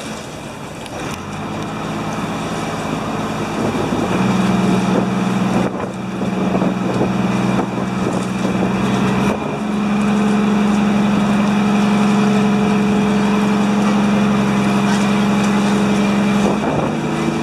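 Pump boat's engine running under way, its drone growing louder over the first few seconds and stepping up in pitch about nine seconds in as the boat gathers speed, over wind and water noise.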